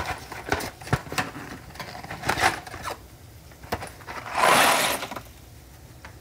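Dry penne pasta poured into a pot of boiling water: a loud rush of rattling and splashing about four seconds in, lasting under a second. A few short, sharp clicks and rattles come before it.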